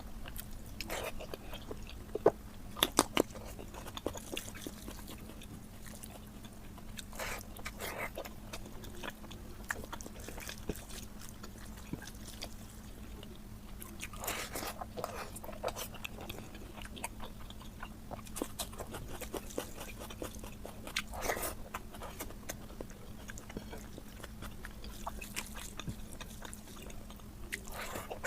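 A person chewing and biting mutton curry, with scattered sharp mouth clicks, a few louder ones about two to three seconds in, over a steady low hum.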